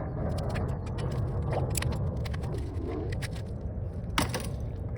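Socket ratchet clicking as it works the 24 mm oil drain bolt on a Kayo K2 230 dirt bike engine, with one sharper knock about four seconds in, over a steady low rumble.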